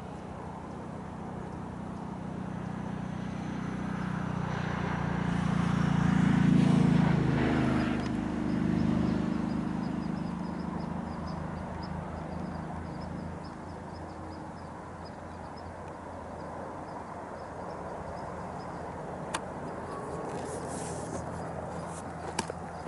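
A motor vehicle passing by: its engine and tyre noise swells over several seconds, is loudest about six to seven seconds in with its pitch dropping as it goes past, then fades away.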